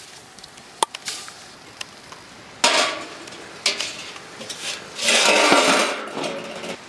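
Cooking utensils knocking and scraping in a pot while onions are being added: a few sharp clinks, then a sudden loud rasping burst about two and a half seconds in and a longer one about five seconds in.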